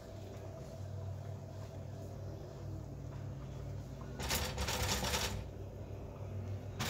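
A utensil stirring shrimp in a nonstick frying pan over a steady low hum, with a louder rasping stroke of about a second about four seconds in and another short one near the end.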